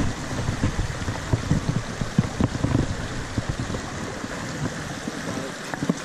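Small mountain stream running over rocks, a steady rushing, with many irregular low thumps and rustles close by, busiest in the first half.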